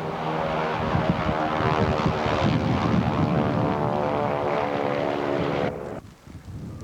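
Propeller aircraft engine running steadily and loudly, cutting off suddenly about six seconds in.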